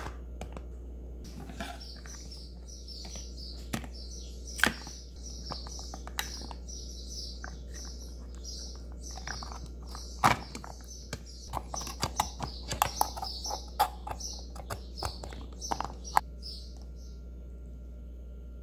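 Green-lipped mussel shells clicking and knocking as they are handled and scraped with a knife in a bowl of water, with a dense run of clicks in the later part. A bird chirps repeatedly in the background.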